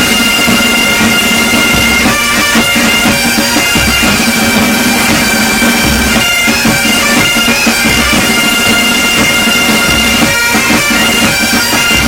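Pipe band playing: bagpipes with a steady drone under the melody, and a bass drum beat about every two seconds.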